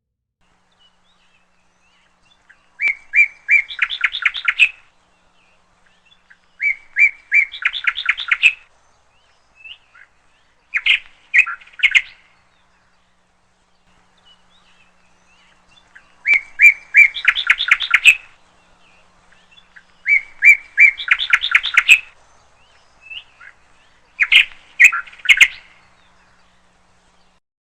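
A songbird singing the same short song six times with pauses between. Each phrase is a few separate notes that break into a fast trill.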